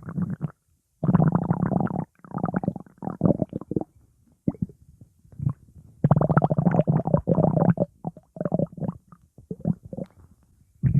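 Stomach growling in a run of gurgling bursts of one to two seconds each, with short quiet gaps between. The longest and loudest come about a second in and around six seconds in.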